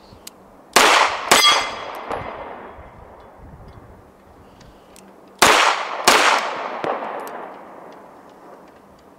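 Two quick pairs of pistol shots from a CZ SP-01: one pair about a second in, the other about five seconds in. Each shot is followed by a long ringing echo that fades over a second or two.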